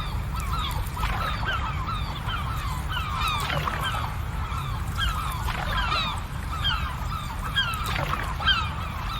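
A flock of birds calling: many short, overlapping calls, each sliding down in pitch, several a second, over a steady low rumble.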